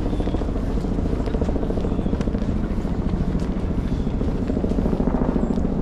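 Helicopter flying overhead, its rotor beating in a fast, steady, even pulse.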